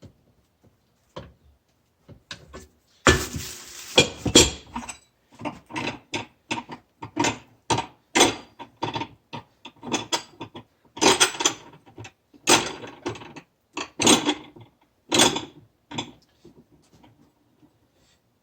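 Hand tools knocking and clanking on the metal parts of a Yamaha Wolverine's secondary clutch. From about three seconds in there is an uneven string of sharp knocks and rattles, roughly one or two a second.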